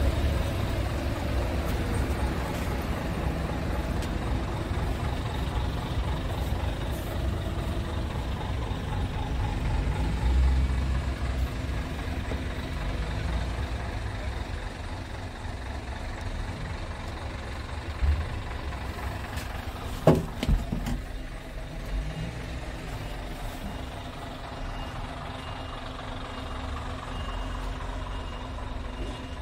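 Heavy diesel truck engine idling as a steady low rumble, with a couple of sharp knocks about two-thirds of the way through and a faint, repeated high beep near the end.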